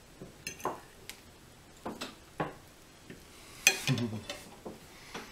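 Forks clinking and scraping on dinner plates as two people cut into and pick up bites of apple crisp: scattered small clicks, the sharpest about three and a half seconds in.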